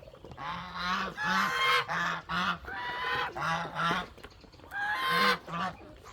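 Domestic goose honking: a rapid series of loud, nasal honks, then a brief pause and two more about five seconds in.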